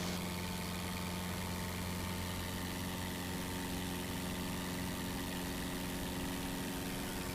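Beechcraft's piston engine and propeller droning steadily at climb power just after takeoff, heard from inside the cockpit.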